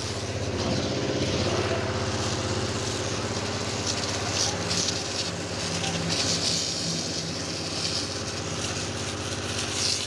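High-pressure water jet hissing and spattering against a tractor's body and rear tyre. A motor drones steadily underneath, and the hiss swells several times as the jet moves across the surfaces.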